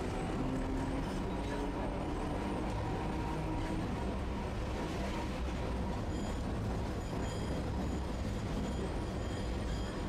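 Tosaden streetcar running along street track, heard from inside the front of the car: a steady low rumble of the running gear and wheels on the rails, with a faint tone over it in the first few seconds.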